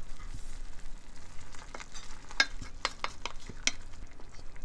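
Wooden spatula stirring potato starch into napa cabbage and spinach in a stainless steel saucepan. The spatula knocks against the pan several times from about two seconds in.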